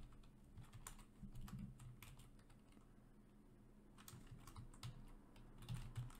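Faint typing on a computer keyboard: irregular key clicks, busier in the first couple of seconds and again from about four seconds in, with a lull between.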